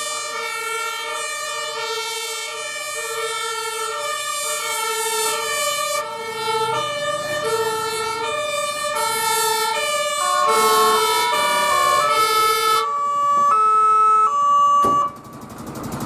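German two-tone fire-engine siren (Martinshorn) sounding, switching between a high and a low tone about every three-quarters of a second. From about ten seconds in a second two-tone siren at different pitches overlaps it, and the sirens cut off suddenly about a second before the end.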